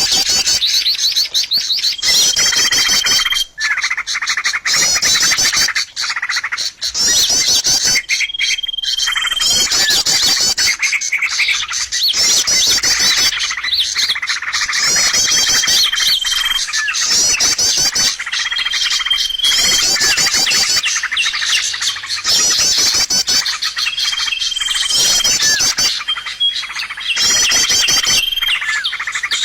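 Bird lure call played as a recording, used to attract wild birds: a songbird's rapid run of high chirps ends in a short, steady high whistle. The phrase repeats every few seconds over a constant bed of other chirping.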